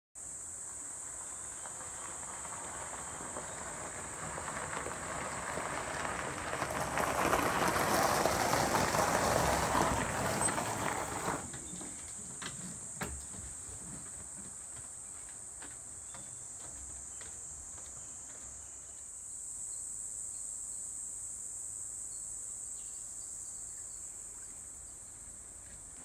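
Insects droning steadily at one high pitch. A rushing noise builds over several seconds and stops abruptly about eleven seconds in, followed by a few light clicks; the insect drone swells again around twenty seconds in.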